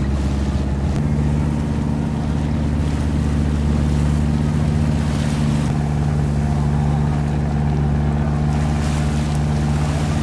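Boat engine running steadily under way, with water rushing along the hull; the engine note shifts slightly about a second in.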